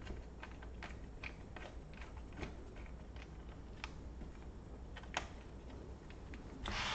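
Irregular small clicks and ticks of laptop plastic parts and tools being handled during disassembly, with a short louder scrape or rustle near the end.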